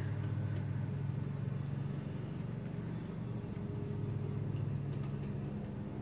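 A steady low machine hum, like a motor or fan running, with a few faint ticks over it.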